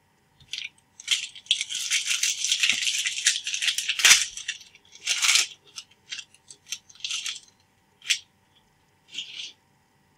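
Crinkling of a foil trading-card pack wrapper being handled and opened, a dense rustle for a few seconds with a sharp snap about four seconds in. After it come scattered short rustles and clicks of cards being handled.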